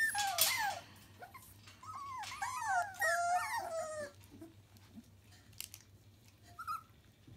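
Young cockapoo puppies whining and yelping in short cries that rise and fall, several overlapping, in a burst in the first second and a cluster from about two to four seconds in, then mostly quiet with one small whimper near the end. They are wanting to be picked up for a cuddle.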